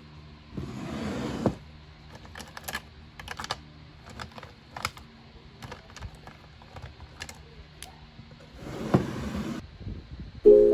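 Pens and highlighters clicking and rattling against each other in a clear plastic pen holder as a hand rummages through them. There are two longer rustling scrapes, one about half a second in and one near the end.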